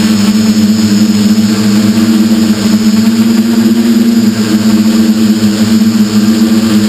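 Electric motors and propellers of a camera-carrying drone, heard from the onboard camera: a loud, steady hum that rises a little in pitch about three seconds in and eases back a second or so later.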